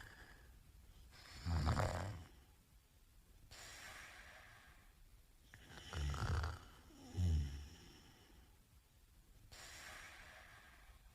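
A man snoring in his sleep. There are loud, low snores about a second and a half in, and again around six and seven seconds in, with softer breaths out between them.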